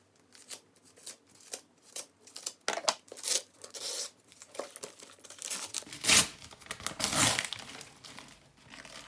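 Packaging around a book being torn open and crumpled by hand: short crinkling rustles at first, then two louder, longer rips about six and seven seconds in.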